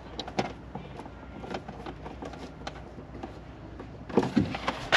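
Small clicks and rustles of hands handling wiring and trim, over a low steady hum, with a louder handling noise about four seconds in.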